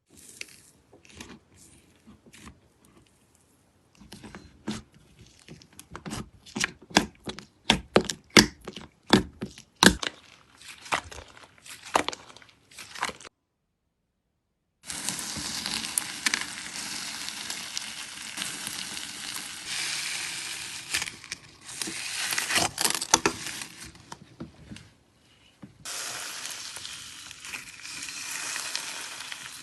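Slime being handled: sharp crackling pops come in quick bursts at first. After a brief gap, a dense, continuous fizzing crackle follows with louder pops in it.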